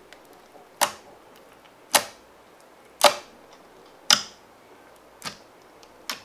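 Fingers poking into clear red slime mixed with gold leaf flakes, each poke giving a sharp wet pop or click as the slime squelches and traps air. Six pops, about one a second.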